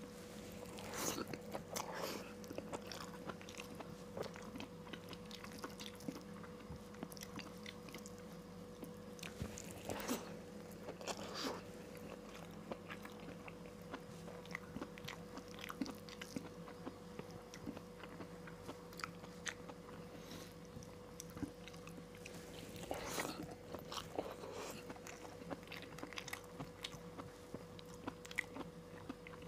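A man chewing and biting mouthfuls of rice and vegetable dishes, picked up close by a clip-on microphone: wet mouth noises and small clicks, with a few louder bites.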